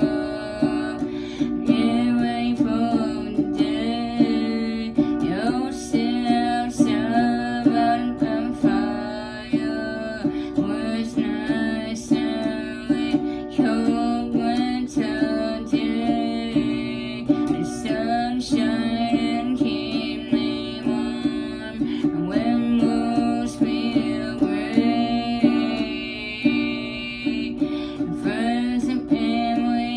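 Music: a plucked string instrument with a singing voice, held low tones under a wavering melodic line, and frequent plucked notes throughout.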